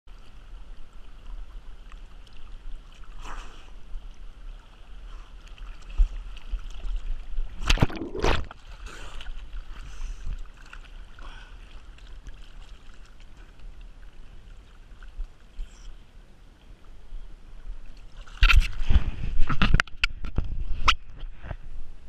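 River current swirling and lapping close around a microphone at water level, with two sharp splashes about eight seconds in and a run of louder splashes near the end.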